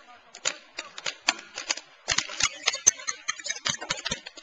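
Paintball markers firing: a rapid, irregular run of sharp pops, several a second, growing denser and louder about halfway through.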